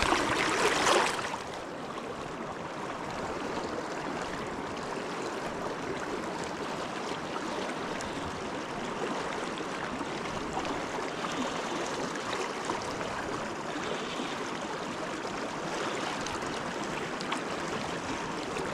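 River water running steadily, louder for about the first second and then settling to an even rush.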